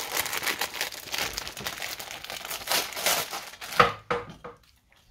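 Plastic wrapper of an Indomie Mi Goreng instant noodle packet crinkling and rustling as it is handled. A little under four seconds in, one sharp knock rings briefly, followed by two or three softer knocks.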